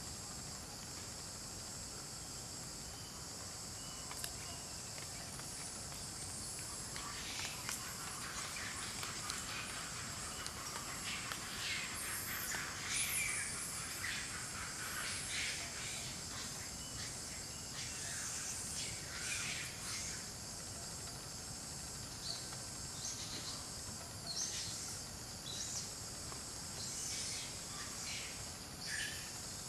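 Outdoor ambience: a steady high-pitched drone of insects, with short, irregular scratchy sounds coming and going from about seven seconds in.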